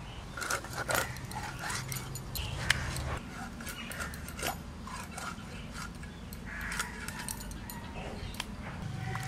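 Rohu fish being sliced into steaks on a boti, an upright curved kitchen blade, with irregular sharp clicks as the blade cuts through the fish, over a steady low hum.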